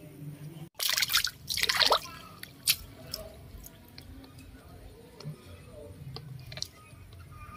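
Water splashing in a plastic basin as a baby macaque moves about in it: two loud bursts of splashing in the first two seconds, then lighter dripping and sloshing with a few sharp clicks.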